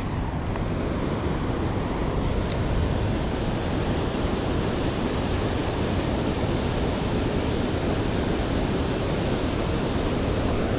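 Steady rushing noise of river water flowing below a dam, mixed with wind on the microphone. A single faint click about two and a half seconds in.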